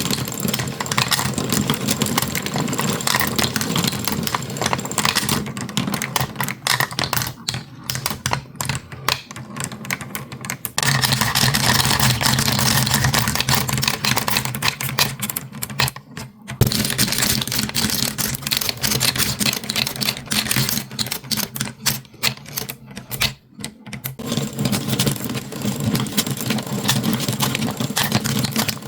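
Marbles rolling and clattering down a toy marble run: a steady rolling rumble under rapid, dense clicks as the balls knock against the track and each other, with a couple of brief lulls.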